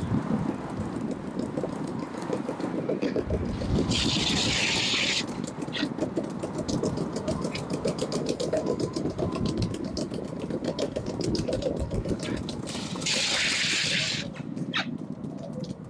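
Longboard wheels rolling over wet paving slabs, heard close up: a steady rumble with rapid clicks over the pavement. A brief burst of hiss cuts in twice, about four and thirteen seconds in.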